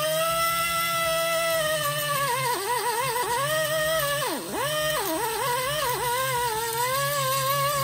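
Small high-speed die grinder whining as its burr grinds the aluminium crankcase of a Honda Dio AF18 scooter engine. Its pitch holds steady at first, then sags and wavers each time the burr is pressed into the metal, with one deep dip a little past the middle.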